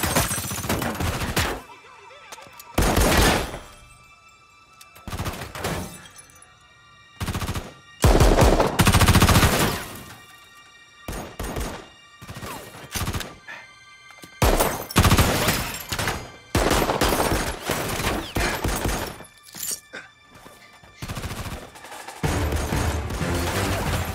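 Action-film soundtrack: a tense music score with held notes, broken repeatedly by loud sudden bursts of gunfire and impacts.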